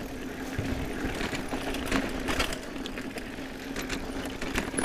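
Hope Pro 4 rear freehub buzzing steadily as the mountain bike coasts fast downhill, over tyre noise on dirt and scattered sharp rattles of the bike over bumps.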